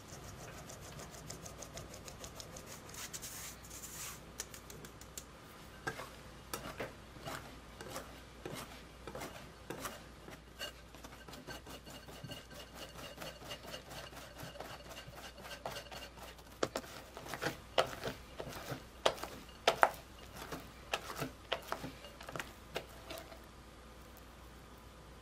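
Wire whisk mixing flour into egg yolk batter in a glass bowl, a fast run of scrapes and ticks played back at triple speed, with a few sharper clinks of the whisk against the glass about two-thirds through. At the start, a soft hiss of flour being sifted through a mesh sieve.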